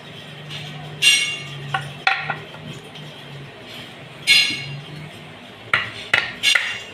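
Metal striking metal: sharp, ringing clinks, a couple of single strikes early on, one past four seconds and a quick cluster of three or four near the end, during suspension swing-arm repair work.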